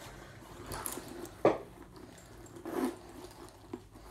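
Keys being tucked into the front pocket of a gold Coach Poppy purse: quiet rustling of the bag with a sharp click about one and a half seconds in and a short rustle near the end.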